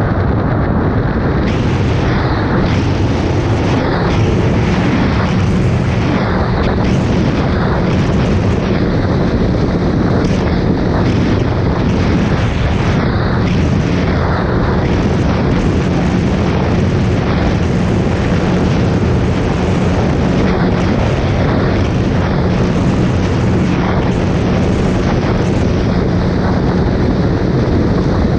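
Suzuki Hayabusa's inline-four engine running at a steady drone while cruising, buried in heavy wind rush on the microphone.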